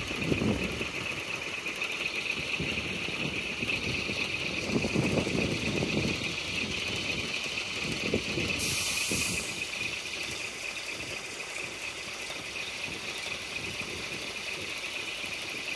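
Level crossing warning alarm sounding continuously with a steady high-pitched tone, the signal that a train is approaching and the road is closed. There is a short burst of hiss about nine seconds in.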